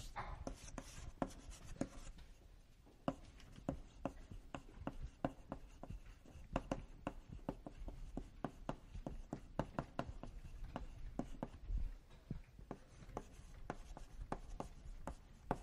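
Writing on a classroom board: a run of short taps and scrapes, a few each second, with a brief lull about two to three seconds in.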